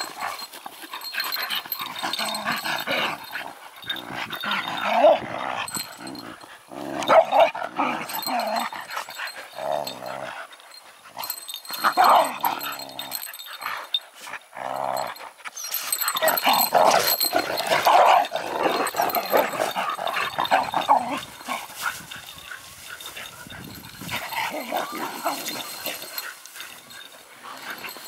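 Several dogs play-fighting, growling and giving short barks in irregular bursts, fainter over the last several seconds.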